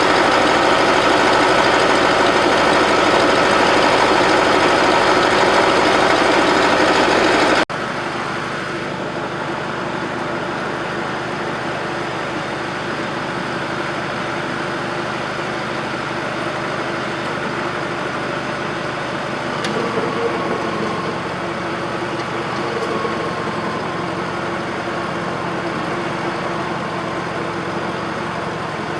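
Bobcat 610 skid-steer loader's Wisconsin gasoline engine running steadily. About seven and a half seconds in, an abrupt cut drops it to a lower, steady level.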